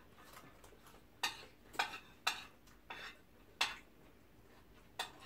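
Forks and spoons clinking and scraping against plates during a meal: about six separate sharp clinks spread over the few seconds.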